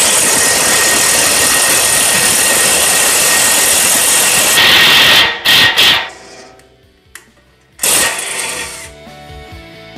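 Impact driver running hard, setting a plus nut (rivet nut) into a 3/8 in hole: one long loud run of about five seconds, two quick blips, then one more short run about eight seconds in.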